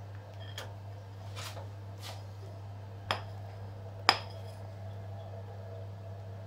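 Kitchen utensils clinking against dishes: a few soft scraping strokes, then two sharp clinks with a short ring about a second apart near the middle, over a steady low hum.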